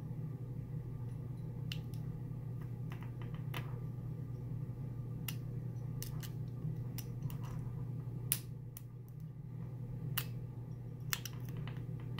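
Lock pick and tension wrench working the pins of a Master Lock lockout padlock: irregular sharp little metallic clicks and ticks, about a dozen, spaced unevenly, over a steady low hum.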